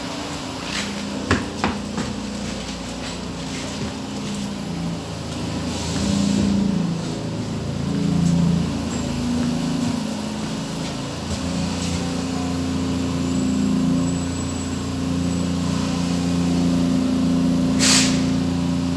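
Stockholm metro C6 train running, heard from inside the car: low motor hum in tones that shift in steps as the speed changes, a few sharp clicks in the first two seconds and a short burst of hiss near the end.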